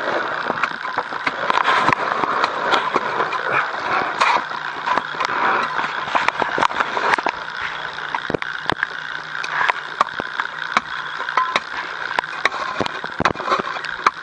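Continuous close rustling and scraping of clothing and gear, with many small sharp knocks, as a caver moves over crusted snow and ice right against the camera.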